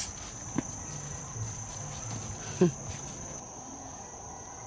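Insects trilling in the trees in one steady high, unbroken tone. About two and a half seconds in, a short voice sound falls in pitch, with a couple of faint clicks near the start.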